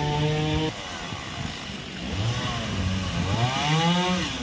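Chainsaw running at a steady pitch, then revving up and down twice as it cuts through a fallen tree.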